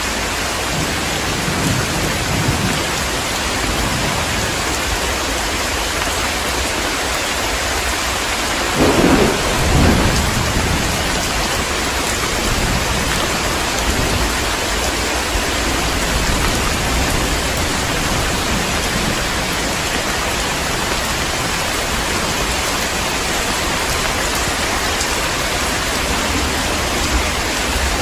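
Heavy rain falling steadily, with a clap of thunder rumbling about nine seconds in and fainter low rumbles near the start.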